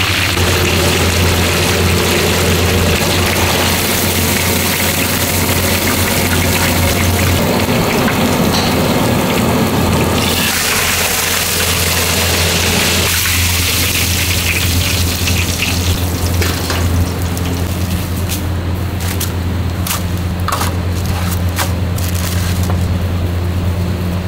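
Fish deep-frying in a large kadai of hot oil: a loud, steady sizzle over a steady low hum. In the last third the sizzle thins and scattered sharp clicks come through.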